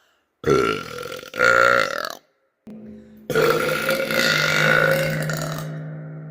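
A woman burping: two short burps in quick succession, then about halfway through a long, loud, drawn-out burp that slowly fades.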